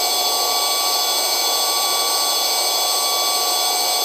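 Steady hiss with several constant high whining tones and nothing rising or falling: police helicopter cabin noise, turbine and gearbox whine, heard over the aircraft's radio or intercom audio feed.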